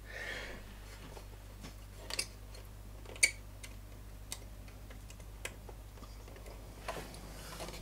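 Scattered light clicks and taps, the loudest about three seconds in, from an electrolytic capacitor's leads being handled and fitted into a circuit board by hand, over a faint steady low hum.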